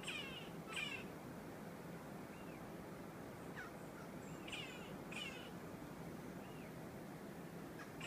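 Magellanic woodpecker giving short scratchy calls in pairs, two at the start and two about halfway through, with a few softer short notes between them.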